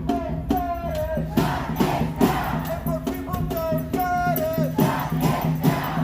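Music: a solo voice singing a melody with long, wavering held notes over a steady low drone, with percussion hits and a shaker-like rattle keeping the beat.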